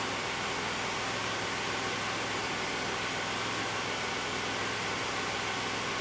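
A 2002 Pontiac Grand Prix GT's 3800 Series II V6 idling, heard from inside the cabin as a steady, even noise with a low hum. This is the rough idle the owner describes, bogging down about once a second, though no distinct dips show here.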